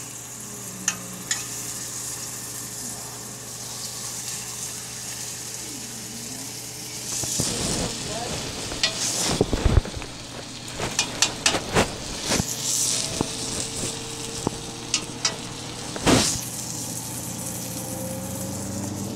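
Pork chops sizzling in a frying pan over a low steady hum. From about seven seconds in come repeated sharp clinks and knocks of utensils against the pan, with louder bursts of sizzle.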